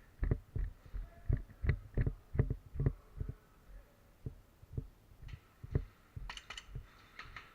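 Quick, even footfalls and gear jostling, a low thump about three times a second for the first three seconds, then slower thumps with a few sharper clicks and rattles near the end.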